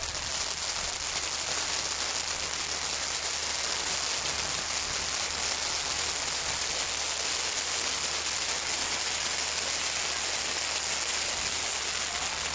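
Firework fountains on an arbolito, a festival firework tower, spraying sparks with a steady, dense hiss and crackle and no separate bangs.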